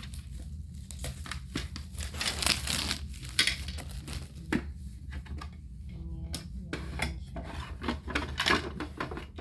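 Plastic packaging crinkling and rustling as items are handled, with scattered light clicks and knocks of small objects being set down.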